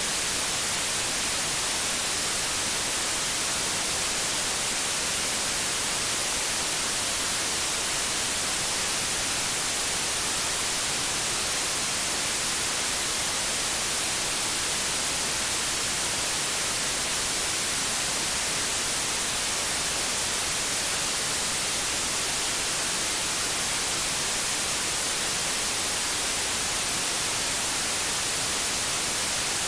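Steady white noise: an even, unchanging hiss that is strongest in the treble.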